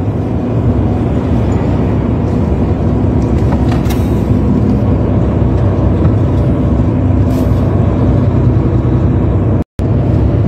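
Steady engine and road noise inside a truck cab driving at highway speed, cutting out for an instant near the end.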